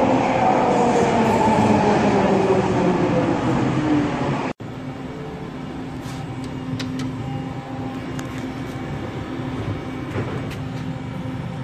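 Vancouver SkyTrain car pulling into the station, its linear-induction motor whine falling in pitch as it slows. About four and a half seconds in, this cuts off abruptly to a quieter steady hum inside a glass elevator, with a few sharp clicks.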